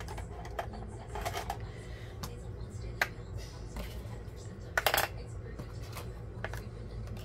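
Light clicks, taps and brief paper rustles of craft paper and stickers being handled on a table, with a sharp click about three seconds in and a louder short rustle near five seconds, over a steady low hum.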